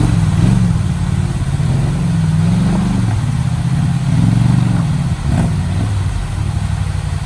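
ATV engine revving as it climbs rock ledges in a creek, its pitch rising and falling twice under load, over running water. A single knock about five seconds in.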